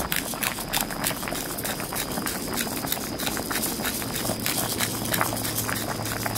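Black pepper being ground with a hand-held grinder over a wooden cutting board: a dense run of dry crackling clicks. A low steady hum joins about four seconds in.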